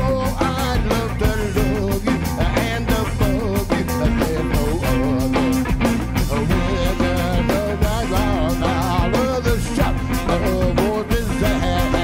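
Live band playing electric guitar, bass guitar and drums, with a lead line bending and wavering in pitch over a steady drum beat.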